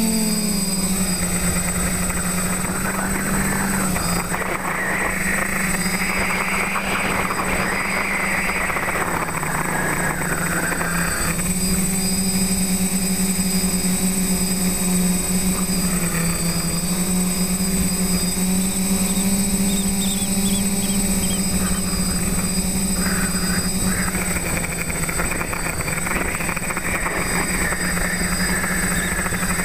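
TBS Discovery quadcopter's electric motors and propellers buzzing steadily in flight, heard up close from the camera mounted on the frame. The pitch dips a little now and then as the throttle changes, with rushing air noise that swells and fades.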